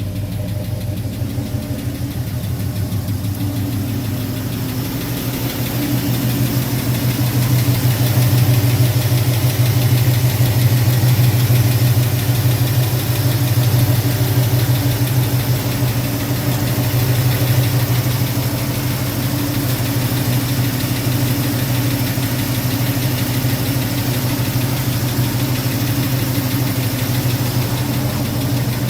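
1972 Ford truck engine running steadily after a cold start. It gets louder about five seconds in and eases back somewhat after about fifteen seconds.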